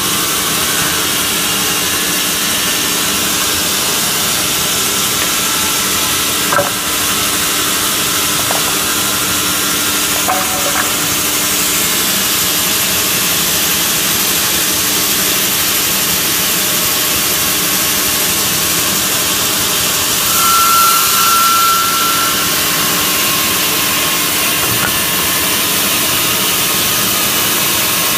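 Horizontal band saw running steadily and sawing through wood, a constant hissing noise over a steady motor hum. A brief higher whine comes about twenty seconds in.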